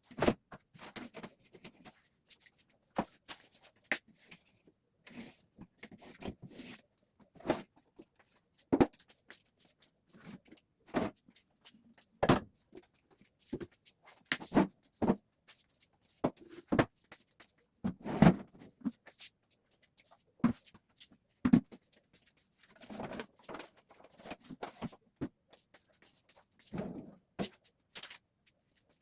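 Irregular knocks, clicks and clatter of household items being handled and set down, with short rubbing sounds between them.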